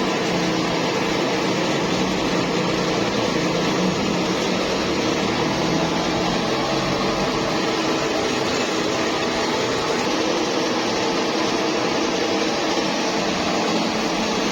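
Metal lathe running steadily: an even machine noise with a faint hum that holds without a break.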